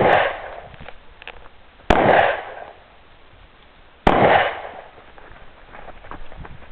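Three gunshots from a firearm at a shooting range, about two seconds apart: one right at the start, one about two seconds in, one about four seconds in. Each is a sharp crack followed by a short echoing tail.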